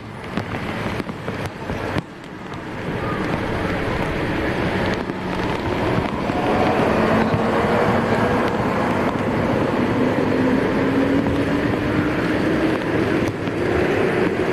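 An engine running out of view, its pitch climbing slowly through the second half, over a steady rushing noise that grows louder about two seconds in.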